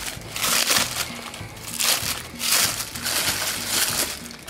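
Clear plastic bag crinkling in bursts as a toilet wax ring is pulled out of it, over background music.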